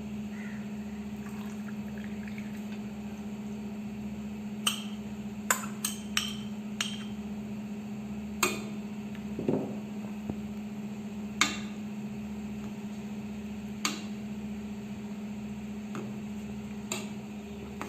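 About ten sharp, irregular clinks of metal cookware, such as a pot lid or utensil knocking a cooking pot, over a steady low hum.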